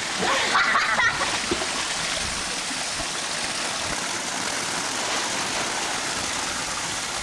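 Pool water feature pouring a steady sheet of water into the pool. For about the first second a border collie splashes in the pool at the falling water; after that the steady pour carries on alone.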